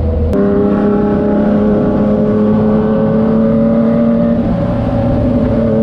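Yamaha MT-09's three-cylinder engine running through a Racefit Slash aftermarket exhaust, its note steady and slowly climbing in pitch, then easing near the end. About a third of a second in there is a click and the note changes.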